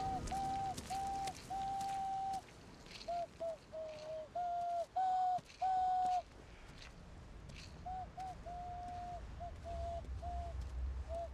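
Hand whistle, blown into cupped hands: a string of clear, dove-like notes, some short and some held, stepping slightly up and down in pitch.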